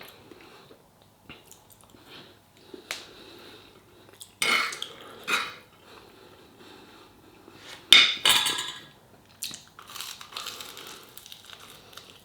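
Cutlery clinking and scraping on a plate during a meal, in scattered short knocks, with a few louder clinks, the loudest about eight seconds in.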